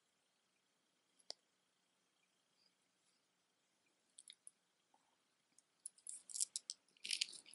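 Jewelry being handled: a few sparse clicks of beads and a metal clasp, then from about six seconds in a busy jingling and clicking of metal chains and beads as one necklace is put down and the next picked up.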